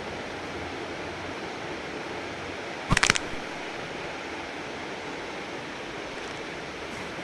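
A steady hiss, with a quick run of several sharp cracks or clicks close together about three seconds in.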